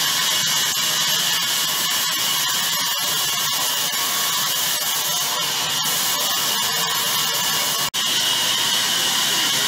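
Sawmill band saw cutting through a log: a steady, high hissing whine. It cuts out for an instant about eight seconds in.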